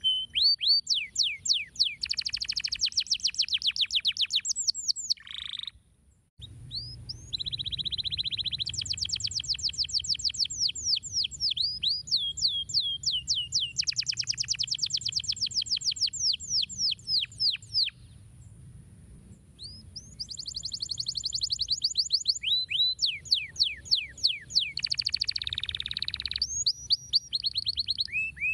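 Domestic canary singing in long, fast trills of rapidly repeated, downward-sweeping notes. The song breaks off briefly about six seconds in and goes quieter for a moment around eighteen seconds. A faint low hum runs underneath.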